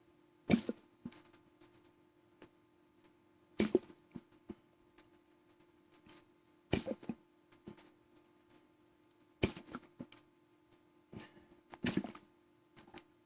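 A man hiccuping from an overfull stomach: five short, sharp hics spaced about every two and a half to three seconds, with small clicks between.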